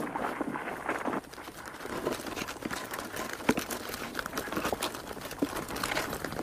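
Dense rustling and crackling of leaf litter with many small clicks close together: an army ant column swarming over the forest floor. It drops briefly about a second in.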